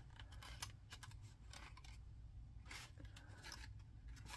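Near silence with a few faint rustles and scrapes of cardstock as fingers hold and press glued paper tabs together, over a steady low hum.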